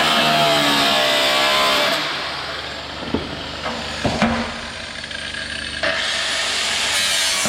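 Background music with sustained guitar-like notes that cuts off about two seconds in, followed by workshop noise with a few scattered knocks and clatters.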